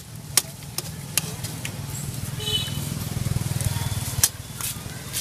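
A metal spoon clinking sharply against a metal pot while sauce and meatballs are scooped into a baguette: a few clinks in the first second or so and two more near the end. Under it runs a steady low engine rumble from street traffic.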